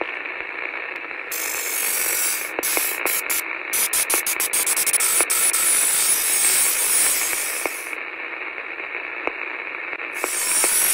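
Steady radio-like static, with louder bursts of hiss and scattered sharp clicks.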